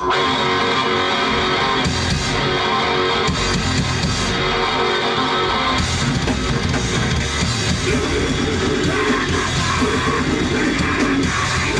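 Rock band playing live, loud and dense, with electric guitar, kicking in abruptly at the very start.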